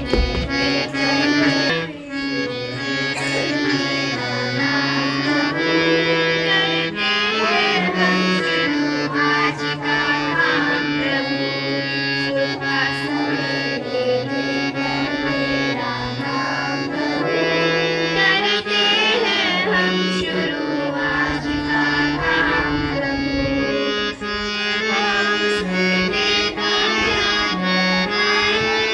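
A school music band performing a song in a traditional Indian style: sustained held chords with a wavering melody line over them.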